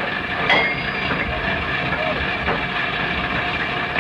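Steady deck machinery noise on a salvage vessel as heavy steel wire ropes are worked, with a sharp clank about half a second in.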